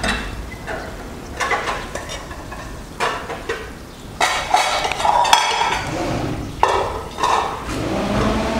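Metal slotted skimmer scraping and clinking against an aluminium cooking pot as cooked rice is scooped out and dropped onto a plate, in a string of irregular scrapes and taps.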